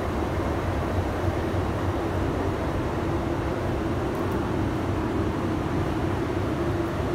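Steady hum and rumble of a railway station platform with passenger trains standing, carrying one continuous droning tone.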